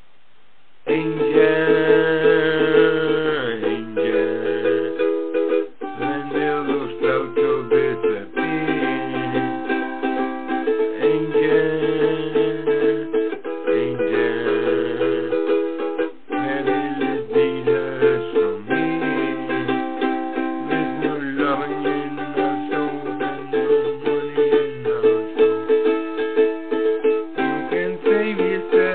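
Background instrumental music, led by a plucked string instrument over a line of held bass notes; it starts about a second in.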